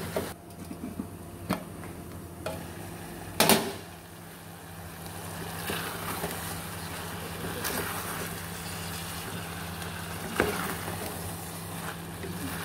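Wooden spatula stirring chunks of liver, tomato and onion in an aluminium pot, knocking against the pot's side a few times, loudest about three and a half seconds in. A steady low hum and a faint sizzle of the frying run underneath.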